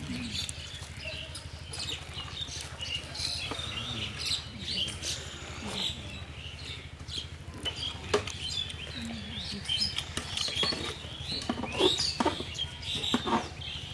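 Close-up eating sounds: wet chewing and lip-smacking of rice and chicken, a quick run of small clicks and squelches over a low steady hum.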